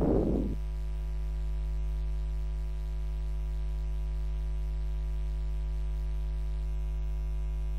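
Steady electrical mains hum: a low buzz with a row of evenly spaced overtones, unchanging throughout. It comes with a brief noise right at the start.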